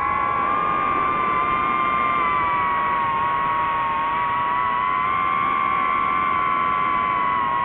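FPV quadcopter's brushless motors and propellers whining at a nearly steady pitch, rising slightly at the start and then holding level.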